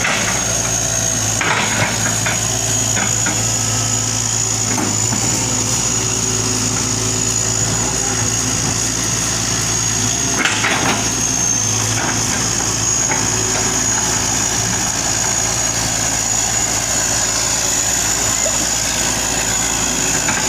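Hitachi hydraulic excavator's diesel engine running steadily, with a steady high whine over it and a few short knocks near the start and again about halfway through.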